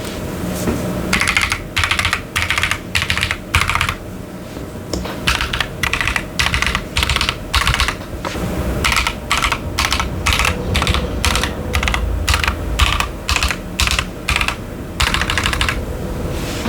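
Keychron Q10 mechanical keyboard with Ashkeebs Amethyst switches and doubleshot PBT keycaps being typed on in quick runs of keystrokes, with a few brief pauses. A steady low background hum runs underneath.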